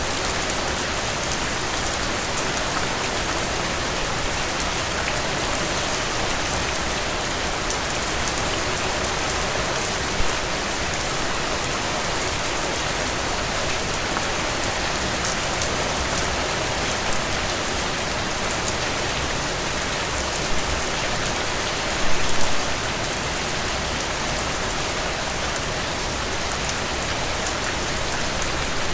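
Strong rain falling steadily, with drips ticking through it. A few louder drips stand out now and then, with a short cluster of them about 22 seconds in.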